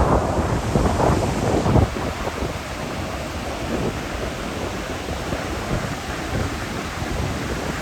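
Ocean surf breaking, with wind buffeting the microphone; louder over the first two seconds, then settling to a steadier wash.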